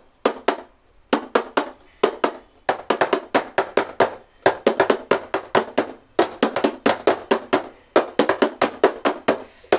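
Plastic cups tapped and slapped on a tabletop, mixed with hand claps, in a fast cup-game rhythm: quick runs of sharp taps broken by short pauses.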